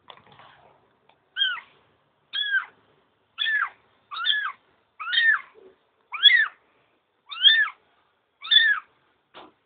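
A kitten meowing over and over: eight short, high calls about one a second, each rising and then falling in pitch.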